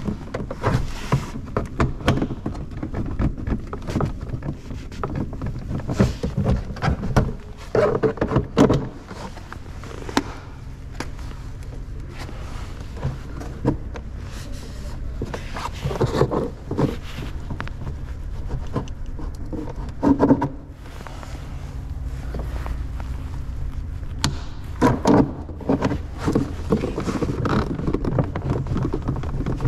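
Handling noise from hands and clothing working around a car door with a plastic trim tool: irregular clicks, knocks and rustling, loudest in clusters about eight, sixteen, twenty and twenty-five seconds in, over a low steady hum.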